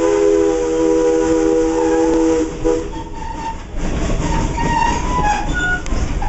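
Steam locomotive whistle of Viscose #6 sounding a steady chord of several notes, cutting off about two and a half seconds in. Then the rumble and clatter of the passenger car rolling along the track grows louder.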